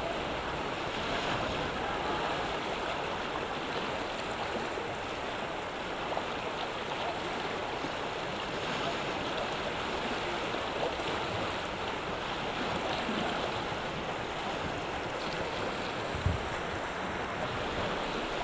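River rapids rushing steadily, an even churning of whitewater, with a single low thump near the end.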